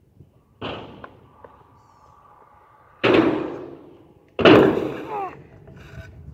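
A kick scooter on a concrete skatepark ramp. There is a clack just over half a second in, then a faint steady rolling of the wheels, then two loud bangs of deck and wheels hitting the ramp about three and four and a half seconds in, the second the loudest. These are the impacts of a trick attempt that the rider does not land.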